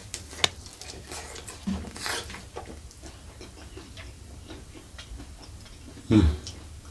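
Close-up mouth sounds of biting into and chewing fried spleen coated in chili sambal: a run of soft wet clicks and smacks, with a sharper click about half a second in and a louder mouth sound about six seconds in.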